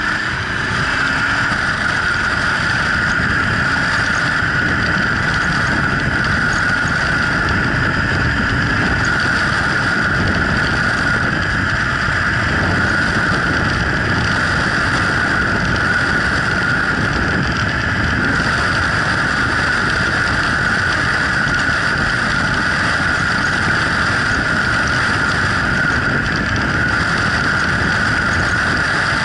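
Wind rushing steadily over a helmet-mounted camera on a Yamaha Drag Star 1100 V-twin cruiser riding at speed, with the motorcycle's engine and tyres running beneath. The noise swells over the first second as the bike gathers speed, then holds steady.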